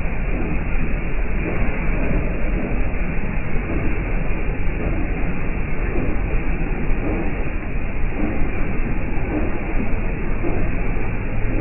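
Jeep Wrangler TJ's 4.0 L inline-six running, a steady low rumble with no distinct knock standing out.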